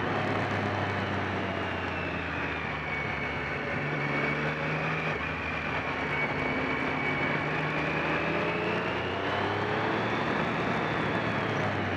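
Motorcycle engine running at road speed, heard onboard with wind rushing over the microphone. Its pitch shifts a little as the throttle eases and opens again through the bends.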